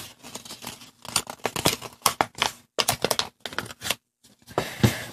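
Origami paper crinkling and crackling as hands fold and crease it, in quick crackles with a short lull about four seconds in.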